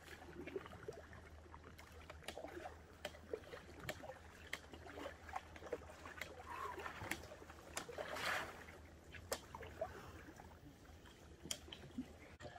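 Faint splashing of a foldable kayak paddle dipping into lake water as the kayak comes in to shore, with scattered light clicks and a louder rush of water about eight seconds in.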